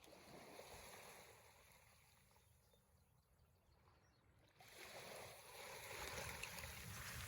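Faint water sloshing and lapping against a kayak, stepping up suddenly and staying louder a little past halfway.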